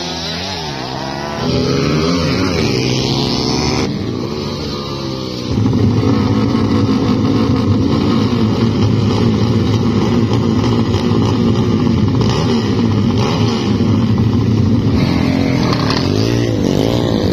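Motorcycle engines revving, their pitch rising and falling over the first few seconds; from about five seconds in, a louder, steady din of many motorcycle engines running and revving together.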